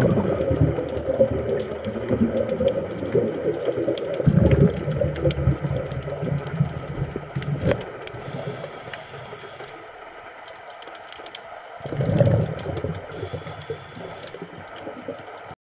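Scuba diver breathing through a regulator underwater: long bursts of exhaled bubbles rumbling, twice broken by a hissing inhalation in the second half.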